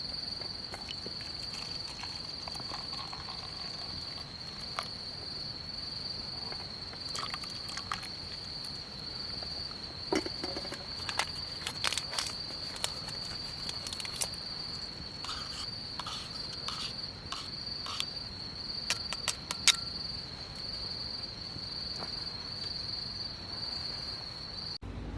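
A cricket trilling on one steady high note, with scattered sharp clicks and taps over it. The trill cuts off suddenly near the end.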